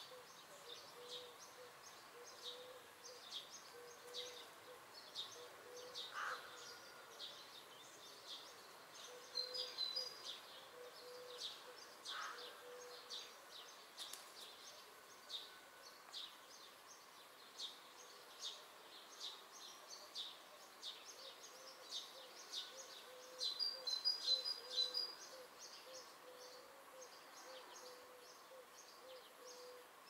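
Birds calling in woodland: short high calls repeat about once a second throughout, with louder bursts of twittering about a third of the way in and again near the end, the loudest. A faint low steady note comes and goes beneath them.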